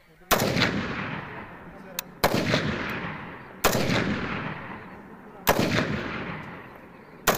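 Rifle shots fired one at a time, five in all, about two seconds apart. Each sharp crack is followed by a long echo that dies away.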